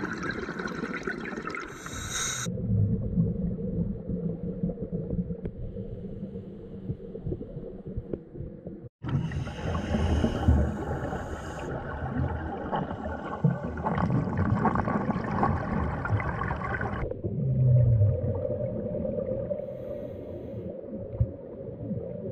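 Scuba regulator breathing heard underwater: stretches of bubbling exhalation alternate with a low, muffled rumble. The sound drops out for a moment about nine seconds in.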